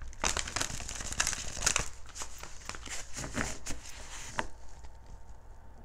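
Oracle cards being handled: a dense run of crisp rustles and flicks for about four and a half seconds, then a few light ticks.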